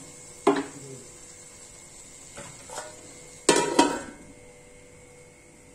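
Metal kitchenware clinking as a lid is put on a metal cooking pot: a knock about half a second in, then two louder clanks with a brief ring a little past the middle.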